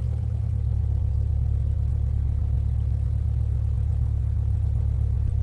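Car sound effect: a car running and driving, heard as a steady low rumble that starts suddenly.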